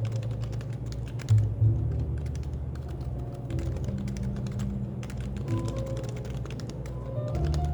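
Typing on a Happy Hacking Keyboard with Topre capacitive switches: a quick, irregular run of key strokes, over café background music.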